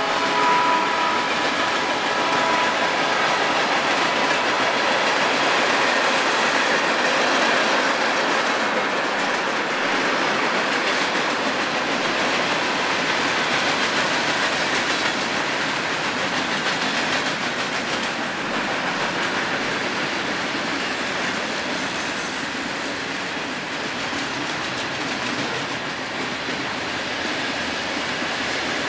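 Freight cars of a passing train, tank cars and covered hoppers, rolling steadily along the rails with a continuous rumble and wheel clickety-clack. The last of a locomotive's chord horn dies away about a second in.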